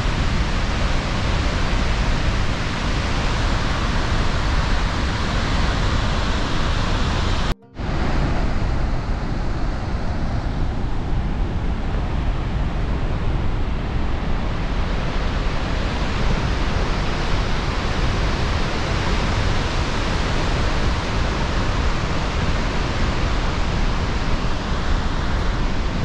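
Loud, steady rush of Helmcken Falls, a waterfall about 500 feet high, heard from its rim. It cuts out for an instant about seven and a half seconds in.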